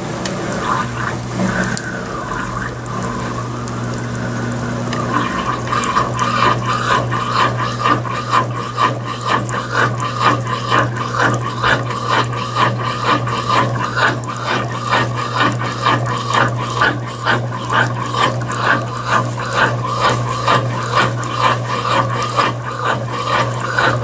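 Consul 16 kg top-load washing machine in its spray rinse: water sprays onto the clothes over a steady low hum from the machine. About five seconds in, the spray gets stronger and takes on a rhythmic pulsing of roughly two splashes a second.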